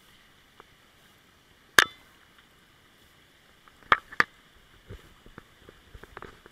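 Sharp knocks or slaps: one loud one about two seconds in, two more close together past the middle, then several softer ones toward the end, over a steady high-pitched drone.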